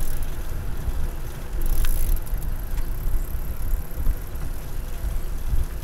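Riding noise from a bicycle rolling along a paved trail, picked up by a handlebar-mounted camera: a steady, uneven low rumble, with a couple of light clicks or rattles about two and three seconds in.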